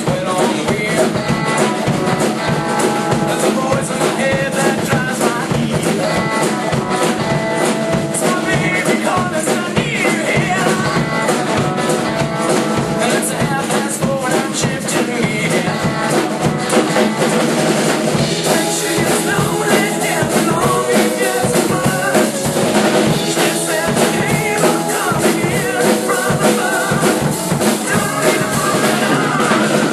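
Music with a drum kit playing a steady beat under other pitched instruments.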